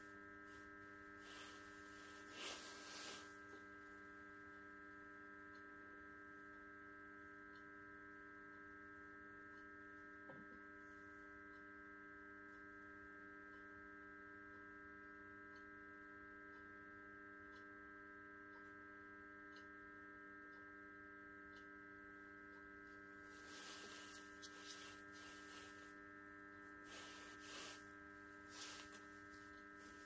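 Near silence: a faint steady electrical hum, with a few brief soft rustles near the start and again in the last several seconds.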